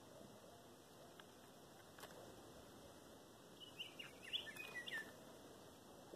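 Northern mockingbird giving a quick run of short chirping calls, about a second and a half long, a little past the middle; otherwise near silence.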